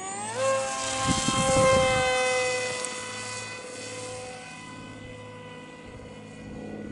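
Model airplane's electric motor spinning an APC 6x5.5 propeller: the whine rises quickly in pitch as the throttle opens, then holds a steady high whine that slowly fades as the plane climbs away. A brief low rush of noise comes about a second in.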